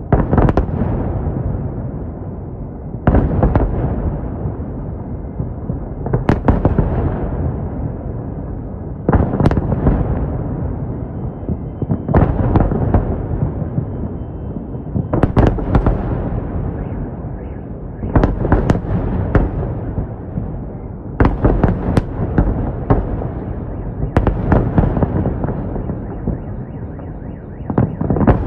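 Fireworks salute going off in volleys about every three seconds. Each volley is a cluster of sharp bangs that trails off into a rumbling, crackling echo before the next one.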